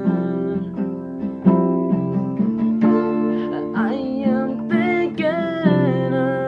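Acoustic guitar strummed in slow chords, with a man singing over it; the voice is strongest in the second half.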